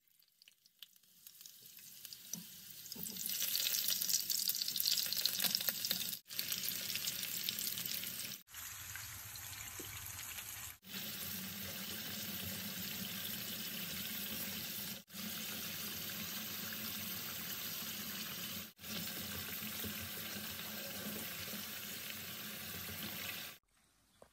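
Sweet potato slices sizzling as they fry in hot oil in a pan. The sizzle builds over the first few seconds, then runs steadily through several short clips with abrupt breaks between them. It stops shortly before the end.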